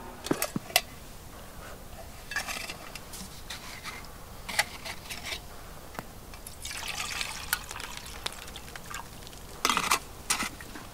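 Liquid poured from a metal bottle in a few short spells, between sharp clicks and clinks as the bottle and its cap are handled.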